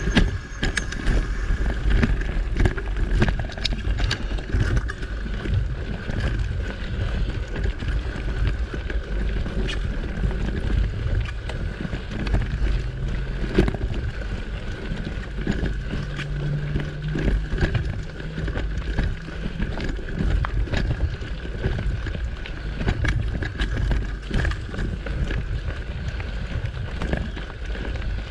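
Mountain bike rolling over a dirt singletrack: steady rumble of wind on the microphone and tyres on the trail, with frequent rattling clicks and knocks from the bike over bumps. A thin, steady high tone runs underneath.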